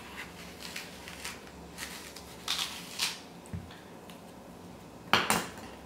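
Knife tip digging seeds out of a halved apple: a scatter of faint scrapes and small clicks, with one louder sharp knock a little after five seconds in.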